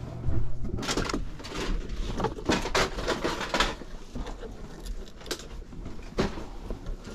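Cardboard game and jigsaw puzzle boxes being handled and shifted: irregular scrapes, knocks and rustles.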